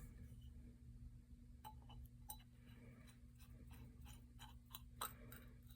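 Faint, scattered light clicks and taps of small metal parts being handled during reassembly of a hand drill, with a sharper click about five seconds in, over a low steady hum.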